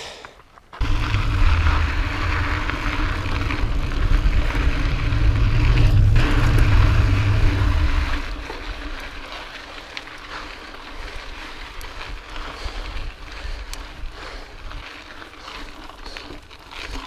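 Pivot Mach 429 Carbon mountain bike rolling over rocky dirt singletrack, with wind buffeting the chest-mounted camera's microphone. A loud low rumble starts about a second in and drops off about halfway through, leaving a quieter hiss with scattered small clicks and rattles.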